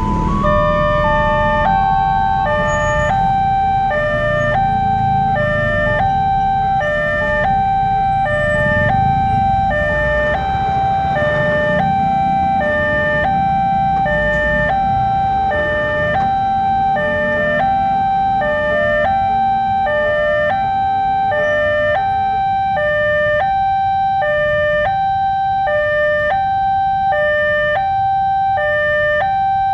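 Two-tone electronic railway level-crossing warning siren sounding continuously, switching back and forth between a lower and a higher note about once every second and a half. A low rumble runs under it for the first ten seconds or so, then fades.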